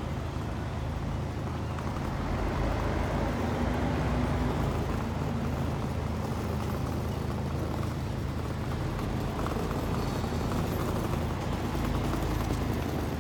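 Steady low engine hum of a road roller and street traffic, growing a little louder about two seconds in.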